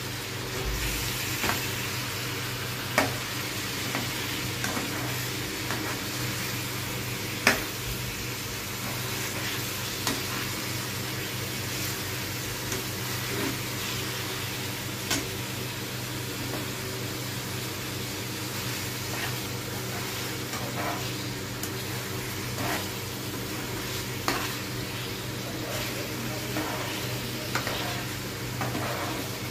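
Chicken pieces sizzling in oil in a frying pan while a metal spatula stirs them, scraping and knocking against the pan now and then, with a steady low hum underneath.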